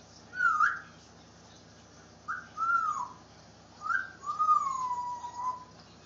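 African grey parrot whistling: three clear whistled phrases. The first is short and swooping, the second arches and falls, and the last is a long whistle gliding slowly downward.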